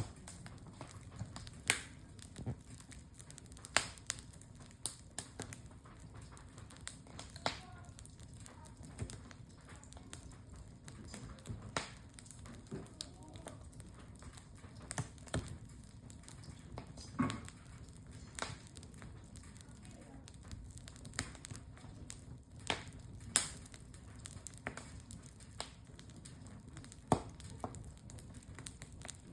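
Wood campfire crackling: irregular sharp pops and snaps, a few every second or two, over a low steady rumble.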